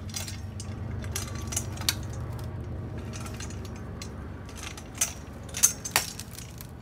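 Metal chain clinking and clicking on a hand-operated tripod fence-post puller as it is worked to pull a concrete-set post. A few sharper metal knocks come near the end, over a steady low hum.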